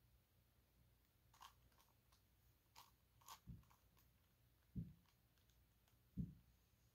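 Gigaminx (5x5 dodecahedron twisty puzzle) being turned by hand, giving a few faint, scattered plastic clicks. Three soft low thumps come in the second half and are the loudest sounds.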